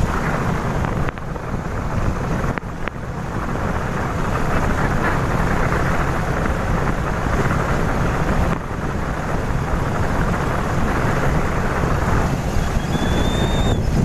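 Wind rushing over the phone's microphone on a moving motorcycle: a loud, steady rush with a low rumble underneath, dipping briefly a few times.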